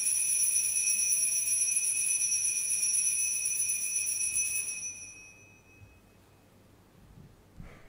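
Altar bells rung at the elevation of the chalice during the consecration at Mass: a steady, high ringing that fades out about five seconds in.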